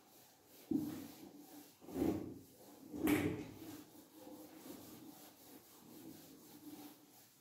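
Whiteboard being wiped clean with a duster: three strong strokes in the first three seconds or so, the third the loudest, then lighter, repeated rubbing across the board.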